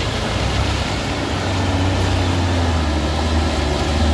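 Truck engine running with a steady low drone that grows a little louder past the middle.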